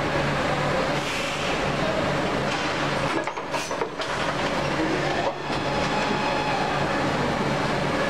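Injection moulding machine running a plastic cap mould, a steady mechanical drone with a hum as the mould opens and closes through one cycle. The level dips briefly a few seconds in and again a little after the middle.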